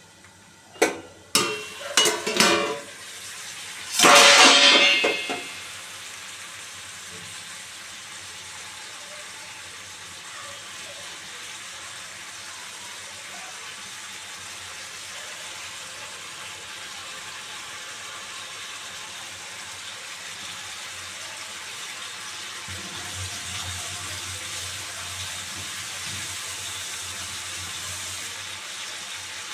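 A steel lid knocking against an iron kadhai a few times, then a loud metal clatter as it is lifted off and set down. The chicken, onions and spices then sizzle steadily in the open pan.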